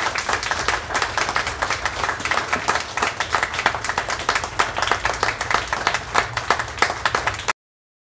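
Audience applauding: many hands clapping at once, which cuts off suddenly near the end.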